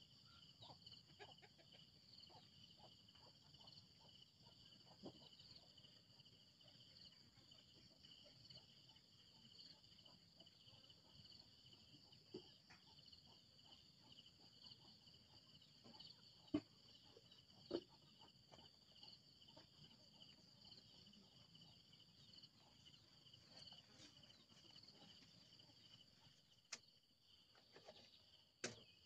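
Faint, steady chorus of insects trilling without a break, with a few soft knocks, two of them a little past halfway.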